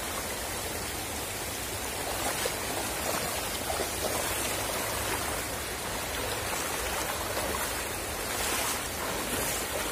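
Shallow stream running over rocks: a steady rush of water, with some splashing near the end as a person wades and sweeps a scoop net through it.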